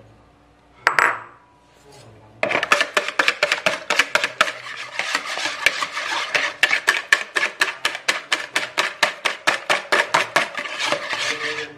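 Wire balloon whisk beating eggs by hand in a plastic mixing bowl: a fast, even clatter of the wires against the bowl, about five strokes a second, starting about two and a half seconds in.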